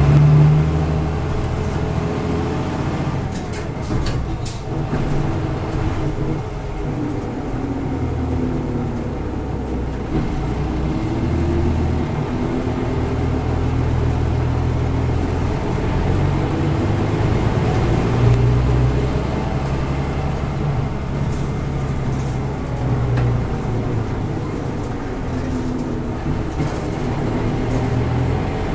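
Cabin sound of a Mitsubishi KK-MK23HJ diesel route bus on the move. The engine drone rises and falls in pitch several times as the bus speeds up and slows. A few clicks and rattles come about four seconds in and again past the twenty-second mark.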